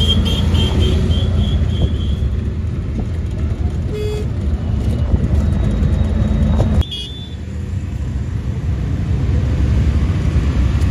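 Auto-rickshaw running through traffic, heard from inside the open cab: a steady engine and road rumble, with a rapid run of short horn beeps in the first two seconds and a few more toots later. The rumble drops suddenly about seven seconds in.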